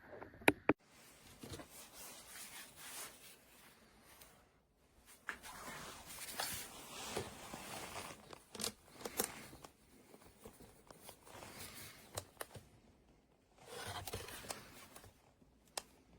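Irregular rustling and scraping with a few sharp clicks, as of things being handled, with two loud clicks about half a second in.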